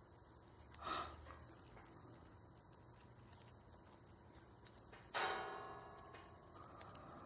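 Faint handling of greasy steel chuck parts: a short scrape about a second in, then a sharp metallic clink about five seconds in that rings on and fades over a second or so.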